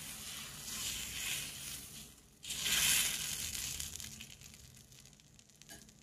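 Back of a steel ladle spreading thick chilla batter in circles on a nonstick tawa, scraping and swishing through the batter in swells. The loudest stroke comes suddenly about two and a half seconds in, and the sound then fades away.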